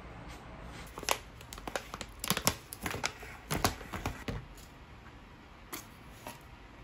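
Paper crinkling and tearing as a small paper packet is handled and opened: a run of short, irregular crinkles and taps for about three and a half seconds, then two faint ticks near the end.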